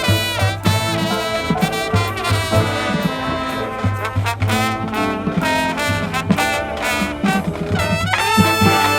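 High school marching band playing: full brass chords from trumpets and trombones over a steady low beat with drum hits, a new loud brass chord entering about eight seconds in.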